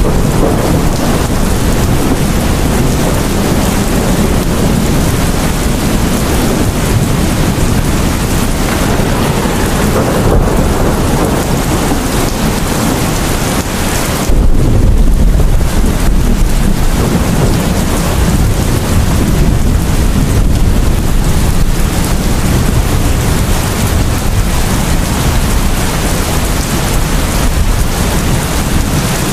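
Heavy rain pouring steadily onto a roof, with a deep rumble of thunder coming in suddenly about halfway through.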